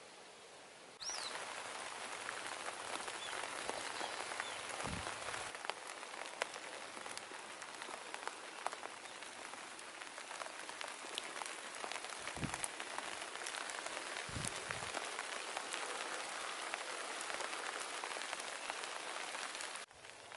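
Rain pattering, a dense steady crackle of drops that starts abruptly about a second in and cuts off just before the end, with a few soft low thumps along the way.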